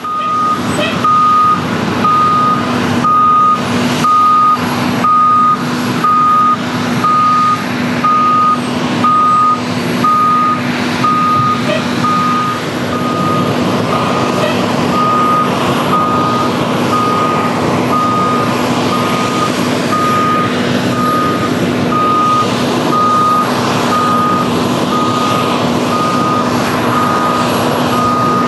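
Reversing alarm of an airport ground service vehicle beeping steadily about once a second, over the constant hum and noise of running ramp machinery.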